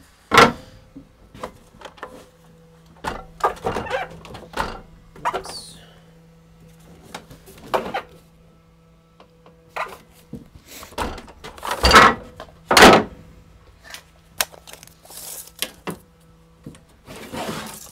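Wooden boards being handled: irregular knocks, thunks and clatters as long stock is set down and shifted on a workbench and miter saw table, the two loudest knocks coming close together about two-thirds of the way through. A faint steady hum runs underneath.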